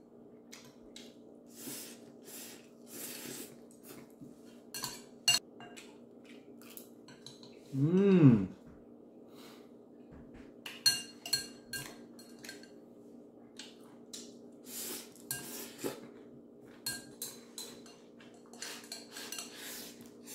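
Chopsticks and a metal spoon clinking and scraping against a ceramic bowl, with the slurping and chewing of rice vermicelli noodles being eaten. About eight seconds in comes a short hummed vocal sound that rises and then falls in pitch, the loudest moment.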